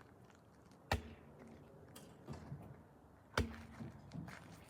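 Two sharp knocks about two and a half seconds apart, with faint handling clatter between, as bicycle parts are picked up and set down.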